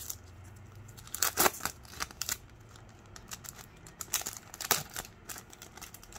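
Foil trading-card pack being torn open and crinkled, then the cards slid out and shuffled between the fingers: crackling rustles in short clusters, loudest about a second and a half in and again near four to five seconds.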